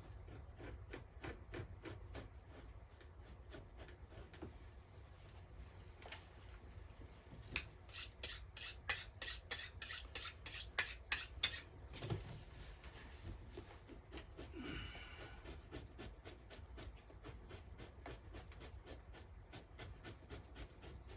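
A Victorinox knife scraping fat and flesh off a beaver pelt in quick, even strokes, about three a second, louder for a few seconds around the middle.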